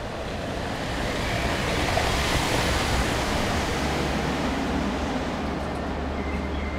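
A van passing on a cobblestone street: the tyre and road noise swells to a peak and then fades. A low steady hum continues underneath in the second half.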